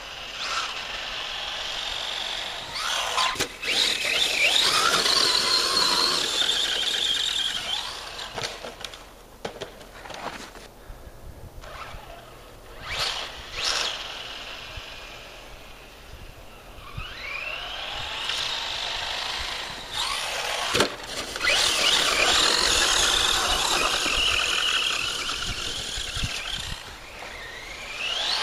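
Traxxas Stampede 4x4 RC truck's Turnigy 3665 brushless motor on a 3S LiPo, whining at high pitch as it rises and falls with the throttle over two long runs. A few sharp knocks come in between.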